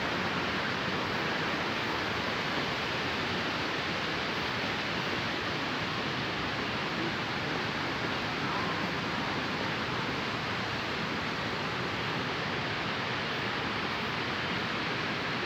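Steady rush of falling water, an even hiss that holds unchanged throughout.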